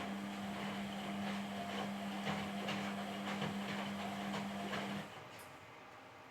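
Indesit WISN82 washing machine running: a steady motor hum with irregular clicking and knocking, which stops abruptly about five seconds in.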